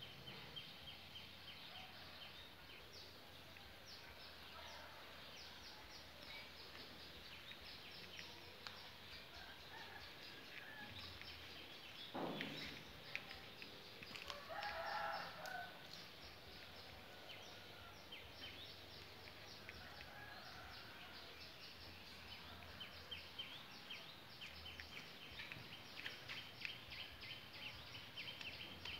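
Faint outdoor ambience of small birds chirping in quick, high twitters, growing busier near the end. About halfway through a louder fowl call, a rooster crowing, stands out, just after a brief sound that drops steeply in pitch.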